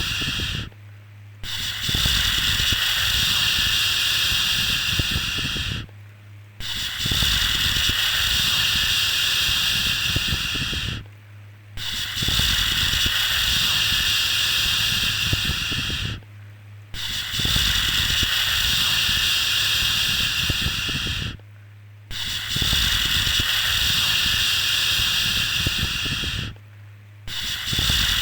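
A looped 'shhh' shushing sound used as sleep noise for babies: long even hissing shushes of about four and a half seconds, each followed by a short break, repeating about every five seconds.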